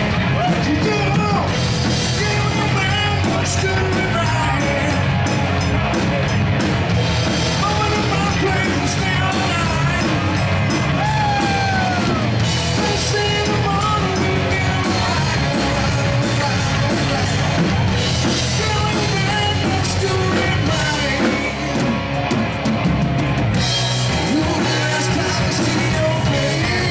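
Rock band playing hard rock with a drum kit and a shouted, yelling lead vocal over the music.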